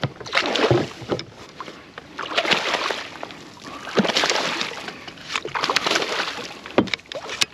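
Water splashing and sloshing against a kayak in repeated surges while a big redfish (red drum) is fought on the line, with two sharp knocks near the end.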